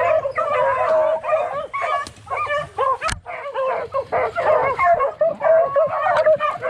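Pack of beagle rabbit hounds barking and yipping, several dogs giving overlapping short calls.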